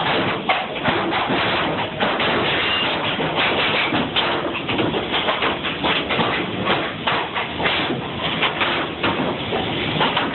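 Repeated sharp knocks at an uneven pace, typical of nails being driven into wooden pallet boards, over background music.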